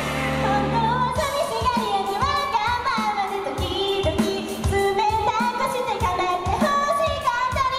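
A girls' idol group singing J-pop into handheld microphones over an amplified backing track. A held chord opens, and a steady drum beat comes in about a second in.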